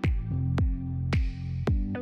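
Electronic background music with a steady beat of about two hits a second, each hit carrying a deep bass note that slides down in pitch.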